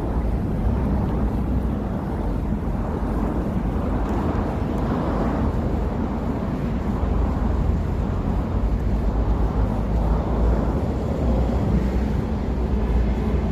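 City street traffic: a steady low rumble of vehicles, swelling as vehicles pass, once about four to six seconds in and again near ten seconds.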